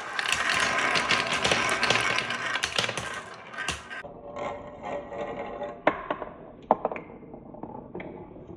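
Marbles rolling and clattering on wood: a dense rattle of many small clicks for the first four seconds or so, then a quieter, duller rolling with a couple of sharp clacks.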